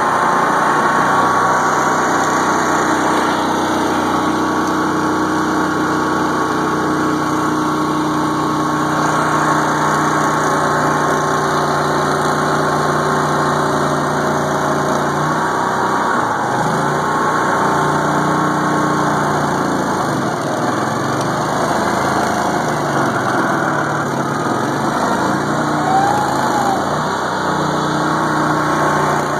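Argo amphibious ATV's engine running steadily as the machine drives through water and reeds, heard from on board. Its pitch dips and rises a few times in the second half.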